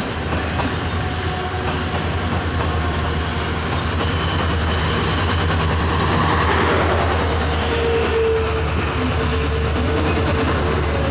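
WDP-4D diesel locomotive's two-stroke EMD engine running with a steady low throb as it arrives and passes close by, loudest around six seconds in, followed by the coaches rolling over the rails. A steady wheel squeal comes in about eight seconds in as the train slows to a stop.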